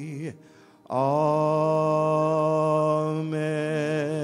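A man singing the closing 'Amen' of a hymn with piano: the previous line's last note ends just after the start, then after a brief pause come two long held notes with gentle vibrato, the second beginning about three seconds in.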